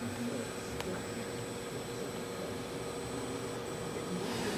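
Steady hum and hiss of a desktop PC running, with one faint click just under a second in.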